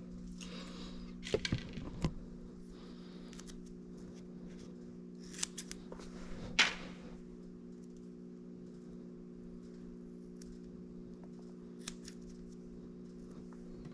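A few short scraping, snipping sounds of material being cut and handled for a patch, the loudest about six and a half seconds in, over a steady low hum.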